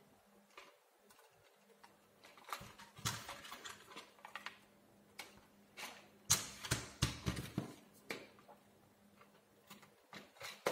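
Handling noise of a rubber tyre and plastic parts being fitted onto a 3D-printed RC tractor's rear wheel hub: scattered clicks, knocks and scraping, busiest about six to eight seconds in.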